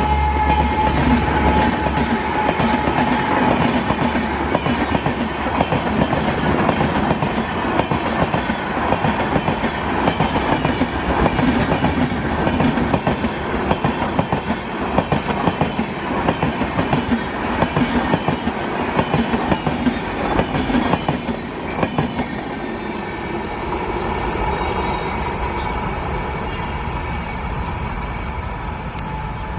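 Shatabdi Express LHB coaches passing at speed, their wheels clattering rapidly over the rail joints. After about twenty seconds the clatter thins into a steadier rumble as the train runs away into the distance.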